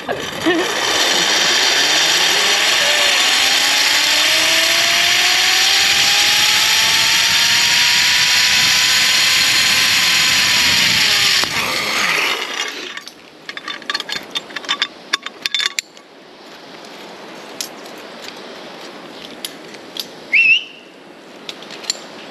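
Zip-line trolley pulleys running along the steel cable: a loud whirring whine that rises in pitch as the rider picks up speed, holds, then falls away as the trolley slows about eleven seconds in. Scattered metallic clicks and clinks follow.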